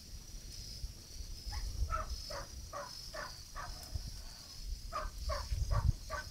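Dog barking in quick runs of short, sharp barks, about two to three a second, with a pause in the middle, over a steady high-pitched insect drone.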